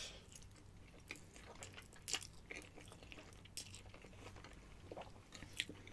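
A person chewing a mouthful of spaghetti close to the microphone: faint, with scattered soft wet mouth clicks and smacks.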